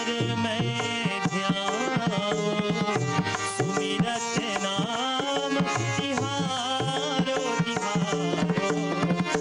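Devotional Hindu bhajan: tabla played in a quick, steady stream of strokes, the bass drum's notes gliding in pitch, over held harmonium chords, with a man singing a wavering melodic line.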